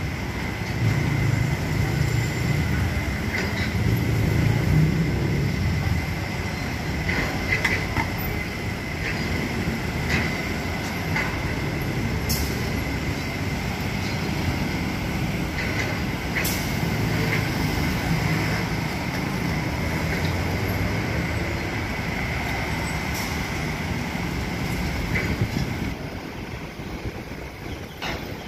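Road traffic on a busy multi-lane road: a steady low rumble of engines and tyres, with a thin high tone running through it and a few sharp clicks. The level drops near the end.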